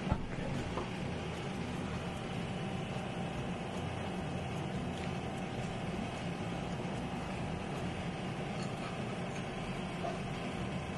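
Steady low hum and hiss of kitchen background noise, holding an even level throughout, with a faint steady tone above it and one click at the very start.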